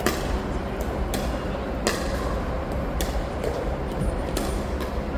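Pickleball paddles striking the ball in a soft dinking rally, a sharp pock about once a second, over a steady low background rumble.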